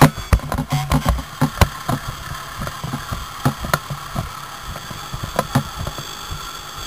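Diesel fire engine idling steadily, with scattered sharp clicks. For the first second and a half a low pulsing sound repeats about twice a second over it.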